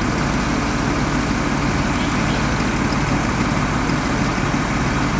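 Heavy diesel truck engines idling steadily, the working engines of the crane and recovery vehicles lifting a semi-trailer out of a ditch.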